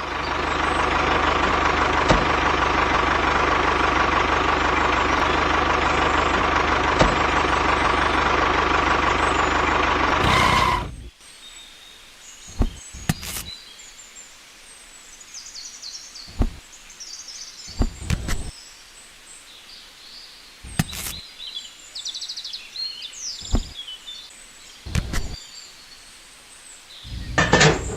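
A machine runs steadily with a constant whine for about eleven seconds, then stops abruptly. After that, birds chirp, and a handful of sharp taps or knocks sound at intervals.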